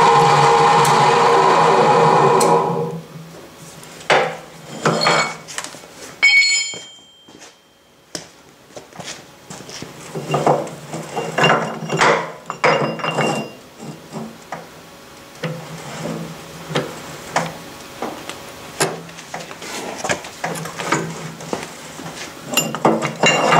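Power hacksaw running steadily, which stops about two and a half seconds in. After that come irregular metallic clanks and knocks as the saw frame is lifted clear of the work, with a low hum that comes and goes.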